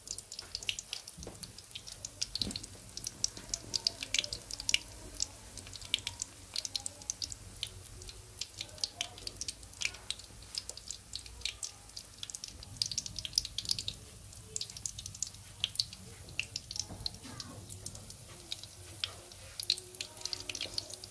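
Fish patties shallow-frying in hot oil in a wok: the oil sizzles with irregular sharp crackles and pops, several a second.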